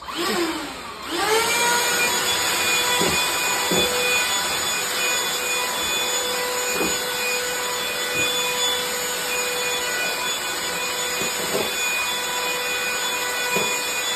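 Cordless handheld vacuum cleaner starting up, its motor whine rising over about a second, then running steadily with a high whine and rushing air, with a few brief scraping rattles as it works.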